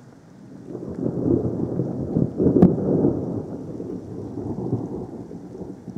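Thunder: a deep rumble builds from about a second in, peaks with a sharp crack near the middle, then rolls on and slowly dies away.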